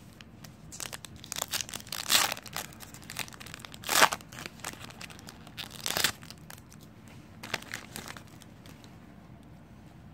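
Plastic wrapper of a Status basketball trading-card pack crinkling and tearing as it is ripped open by hand. It comes as a run of short crackles, loudest about four and six seconds in.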